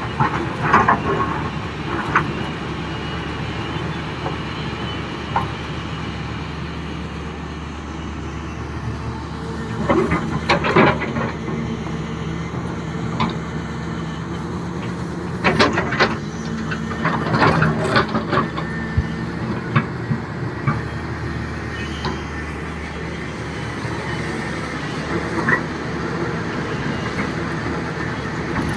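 Excavator's diesel engine running steadily, with rocks clattering and knocking against the bucket in clusters about ten seconds in and again around fifteen to eighteen seconds in.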